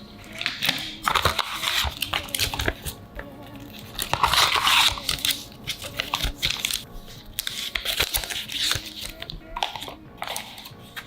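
Packaging of an Apple MagSafe charger being handled and opened: irregular crinkling, rustling and tearing of paper and plastic, over quiet background music.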